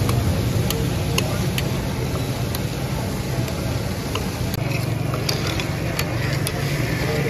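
A steady low rumble of a busy roadside setting, over which a metal spatula strikes and scrapes on a tawa in sharp clinks, about one or two a second at an uneven pace, as liver is fried.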